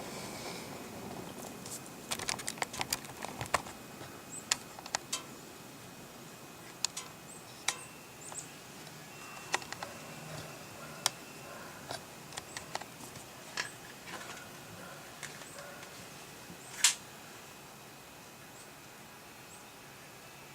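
Quiet stretch of small scattered clicks and light knocks, a cluster of them two to three seconds in, with one louder brief rustling burst about three-quarters of the way through; no shot is fired.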